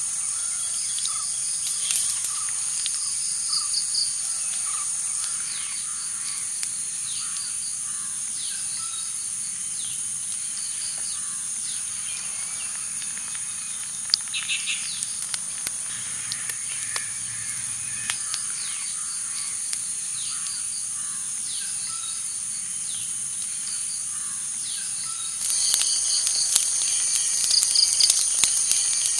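Outdoor ambience of steady high-pitched insect chirring with birds calling. About 25 seconds in, a crackling wood fire joins in with sharp pops.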